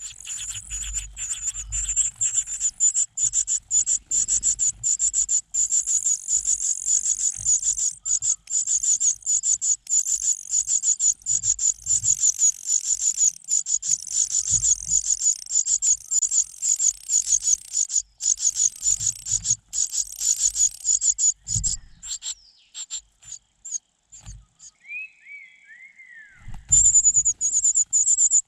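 Nestlings giving rapid, high-pitched begging calls, a dense chirring run of many chirps a second that stops suddenly for a few seconds and starts again near the end. During the break there are a few short falling whistles, and soft low thumps come and go throughout.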